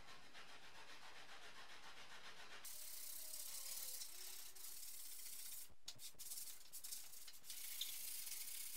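Wet hand-scrubbing of a car headliner's moulded backing board with a cloth, a steady rough rubbing hiss. It turns brighter and hissier about a third of the way in.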